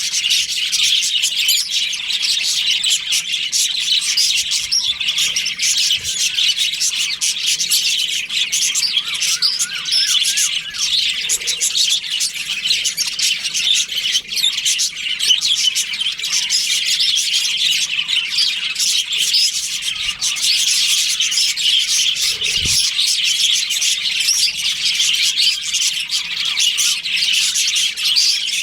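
A flock of budgerigars chattering and chirping without pause, many birds calling over one another in a dense, high twittering, with the odd harsher squawk.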